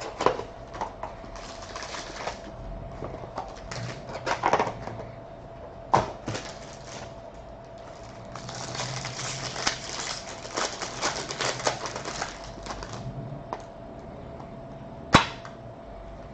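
Trading card box and foil pack wrappers being opened and handled: crinkling and tearing, densest in a stretch of several seconds in the middle, with a few sharp clicks and taps.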